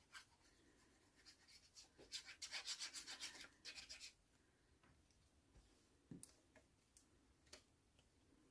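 Sliding paper trimmer cutting white cardstock: a quiet, rapid rasping run as the cutting head is drawn along the rail, starting about a second in and lasting about three seconds, then a few faint clicks.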